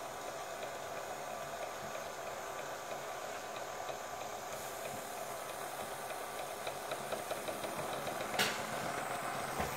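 Homemade single-cylinder model steam engine running steadily under steam: a constant hiss with a fast, light mechanical ticking. A sharp click sounds once, about eight seconds in.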